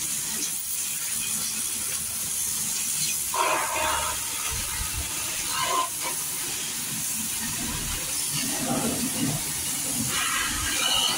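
Steady high hiss of a pressurised spray, with a few short louder noises about three and a half seconds in and again near the end.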